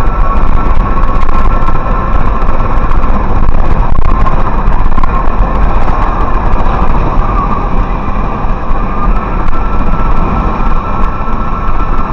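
Steady engine and road noise inside a tractor-trailer's cab while driving, with a constant whine running under it.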